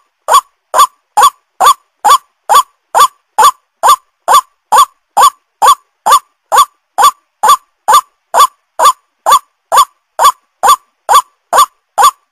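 White-breasted waterhen (ruak-ruak) call: a short, loud, nasal note that rises and falls, repeated evenly about two and a half times a second.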